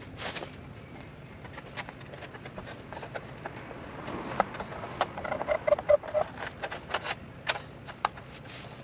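Curved metal-cutting scissors snipping through thin 0.5 mm copper sheet to cut out a cylinder head gasket: irregular clicks and snaps of the blades and sheet, with a quick run of about five short squeaky notes a little past halfway.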